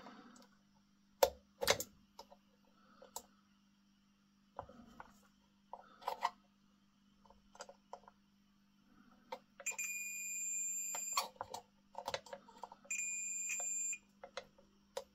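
Digital multimeter's continuity beeper sounding twice: a steady high beep of about a second and a half around ten seconds in, then a one-second beep about three seconds later. Between the beeps there are scattered clicks and scrapes of the test probe on the lamp's brass fitting. The beep comes only now and then because the oxidised brass makes a bad contact.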